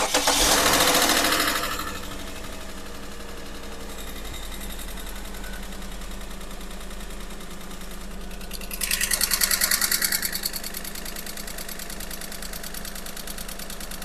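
Car engine starting and flaring up, then idling with a fast, even ticking knock running through it, and revved briefly about nine seconds in. It is the abnormal noise that has come back in an engine overhauled only a few months earlier.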